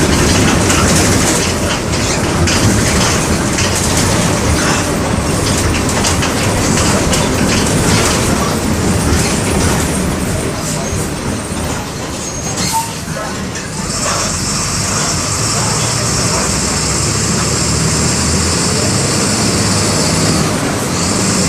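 MWM 6.12 TCE turbodiesel inline-six of a Volksbus 17-230 bus running under way, with steady engine noise and many rattles and knocks from the bus body. The engine eases briefly about two-thirds through, after which a steady high hiss joins it.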